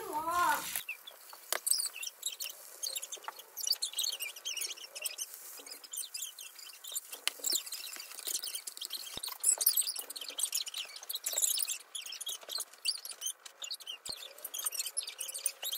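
Egg and bagel halves frying in butter in a nonstick pan, sizzling with an irregular stream of small crackling pops.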